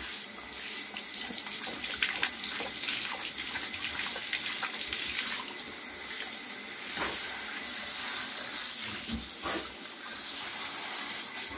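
Water running steadily from a handheld shower head into a bathtub, with irregular small splashes and lapping as an Alaskan malamute drinks from the stream.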